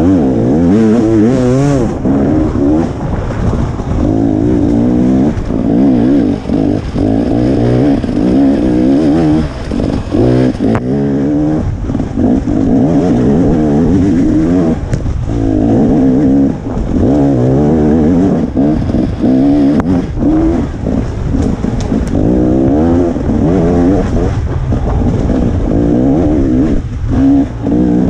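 KTM 300 XC single-cylinder two-stroke dirt bike engine, revving up and down without a break as the throttle is worked, with short dips where it is shut off every few seconds.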